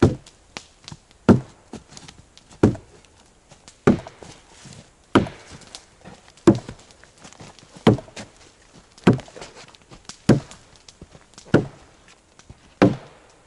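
Axe chopping into a log to cut a corner notch: a sharp wooden blow about every 1.3 seconds, eleven in all.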